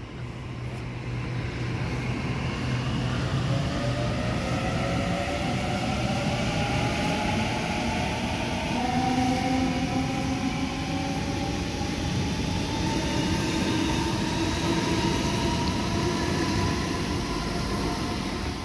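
Waratah electric double-deck train accelerating away from the platform, its traction motors whining in several tones that rise together over the first ten seconds or so, over a steady rumble of wheels on rails.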